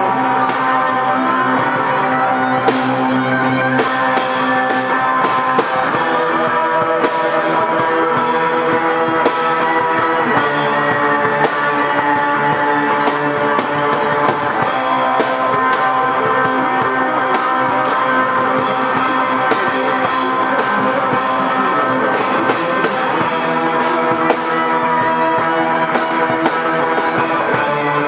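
Instrumental rock music played live on several electric guitars with a drum kit, at a steady loud level.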